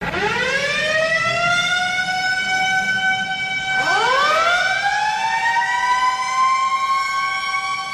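HIFK ice hockey goal horn sounding as siren wails. One wail winds up in pitch at the start and holds. A second, higher wail winds up about four seconds in and sounds over the first.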